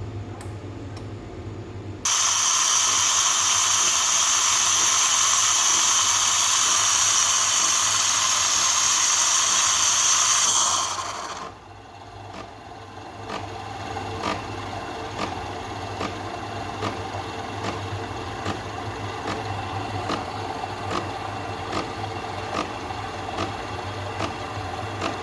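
Home espresso machine: a steady low hum, then about two seconds in a loud steady hiss of the steam wand for about eight seconds, which cuts off; afterwards the hum continues with faint regular clicks, about one and a half a second.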